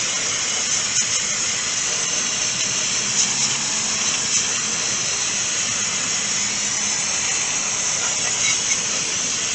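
A continuous spray hissing steadily. It cuts off sharply near the end.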